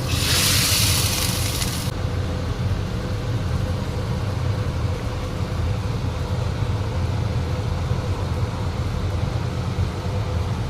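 Kitchen range hood fan running with a steady low drone, with a louder hiss over it for the first two seconds.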